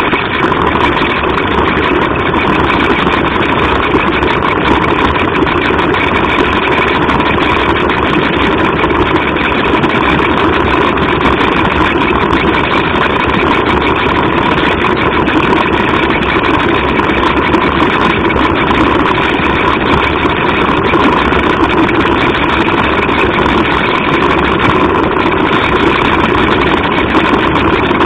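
Small electric motor of a floor-crawling device running steadily, heard close up from on board: an even mechanical hum with a constant whine.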